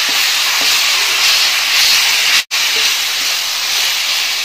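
Sliced onions with ginger-garlic paste and green chillies sizzling in hot oil in a large aluminium pot as they are stirred. The ginger-garlic paste is being sautéed until its raw smell goes. A steady hiss that cuts out for an instant about halfway through.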